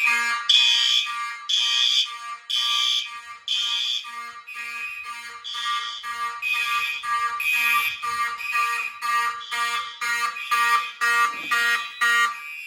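Fire alarm horns sounding in pulsed blasts after a manual pull station is pulled: the system is in alarm. The blasts come about once a second at first and quicken to two or three a second in the second half.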